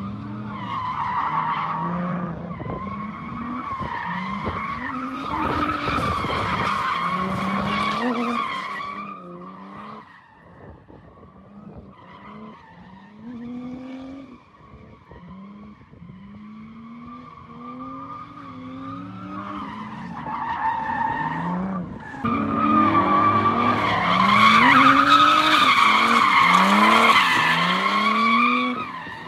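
Drift car's engine revving in repeated rising sweeps while its tyres squeal through long slides. It is loud over the first eight seconds, drops back for about twelve seconds, then comes back loudest near the end.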